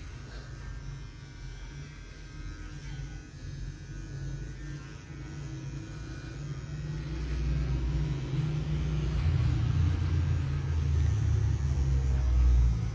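Cordless hair trimmer running as it cuts beard hair, a low steady hum that swells and fades as it moves. It grows louder in the second half, then drops off near the end.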